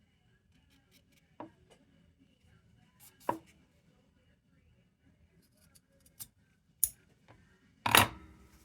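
Scattered clicks and knocks of objects being picked up and set down on a workbench, about five in all, the loudest a sharp clatter with a brief ring near the end.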